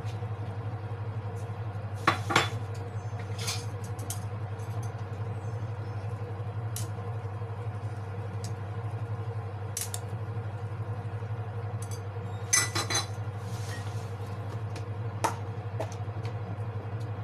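Metal tongs clinking against a white pot while enoki mushrooms are stirred into boiling soup: a few sharp clinks about two seconds in, single ones now and then, and a cluster near thirteen seconds. A steady low hum runs underneath.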